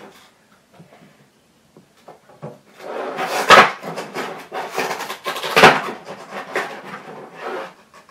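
Clear plastic blister packaging of a Funko Pop figure being handled and pulled open, crinkling and crackling, with two sharper cracks about three and a half and five and a half seconds in.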